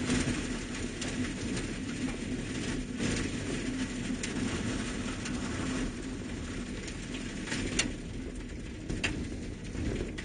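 Inside a vehicle driving a snow-packed back road: steady engine and tyre rumble. A few sharp knocks or rattles come through on bumps, the loudest about eight seconds in.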